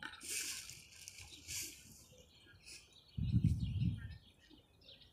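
Small birds chirping in the background, with a brief high rustling hiss near the start and a low rumble lasting under a second about three seconds in.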